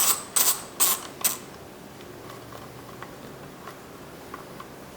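Socket ratchet clicking as a 10mm bolt is backed out, in four short swings over the first second and a half, then only faint small ticks.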